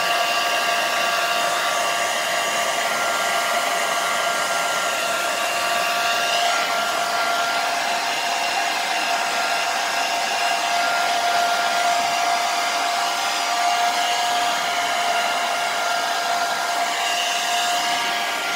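Handheld hair dryer running steadily, blowing air over a wet corgi puppy's coat: a constant rush of air with a steady whine from the motor.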